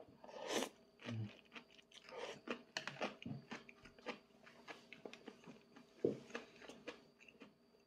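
A person chewing a mouthful of nabeyaki udon: soft, irregular wet mouth sounds and small clicks.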